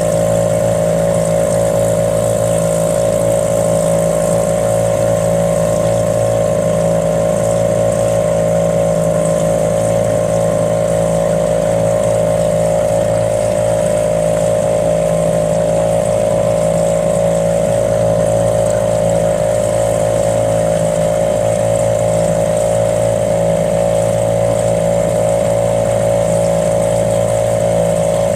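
A motor running steadily at constant speed, an even hum that does not change.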